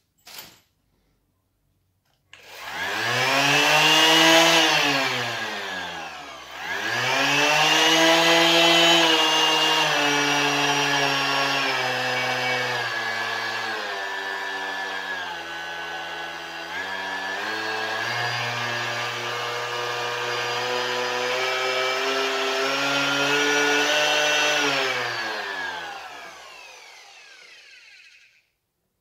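Milwaukee ROS 150 E-2 corded random orbital sander running unloaded in the air. It is switched on and spins up, slows almost to a stop around six seconds in and speeds up again, then its whine steps down through several speed settings and back up before it winds down near the end.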